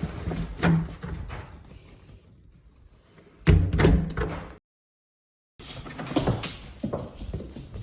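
A house door opening and shutting, with a heavy thump about three and a half seconds in, among lighter clicks and knocks. The sound drops out completely for about a second, then light tapping and shuffling resume.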